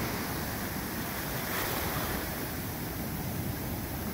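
Ocean surf breaking and washing up the beach in a steady rush of water noise.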